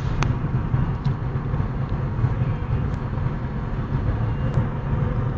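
Steady low rumble of a car driving at road speed, heard from inside the cabin: road, engine and wind noise together, with a few faint clicks.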